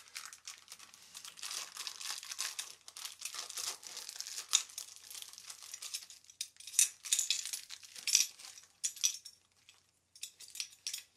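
Packaging rustling and crinkling as small parts are handled and unwrapped, with a few sharper clicks. It drops to a brief lull about nine and a half seconds in.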